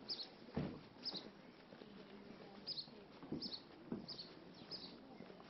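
A small bird chirping over and over, short high chirps coming roughly once a second, over faint outdoor background, with a few soft thumps in between.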